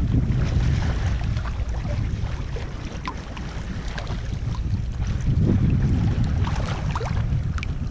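Small lake waves lapping and trickling over pebbles right at the microphone, with a low rumble of wind on the microphone that swells about half a second in and again around five to six seconds in.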